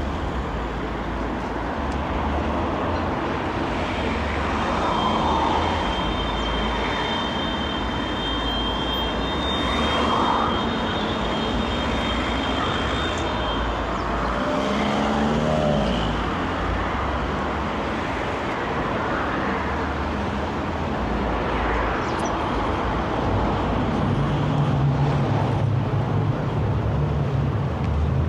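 Steady road traffic noise from passing cars. A low engine hum grows louder near the end.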